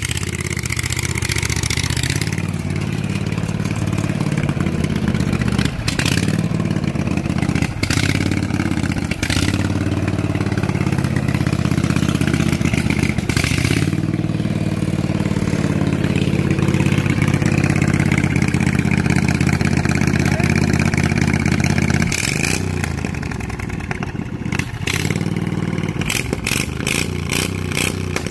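Lawn tractor's 25-horsepower Kohler engine running, its speed rising and falling as it is revved, then easing to a lower, quieter run about 22 seconds in.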